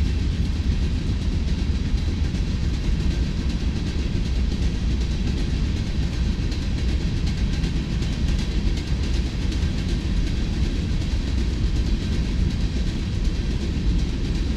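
Freight train rolling past, a steady rumble of the cars' wheels on the rails.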